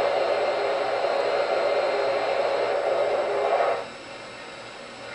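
MTH O-gauge Santa Fe 4-8-2 L-3 Mohawk model locomotive running, a steady noise that cuts off suddenly about four seconds in, leaving a quieter background.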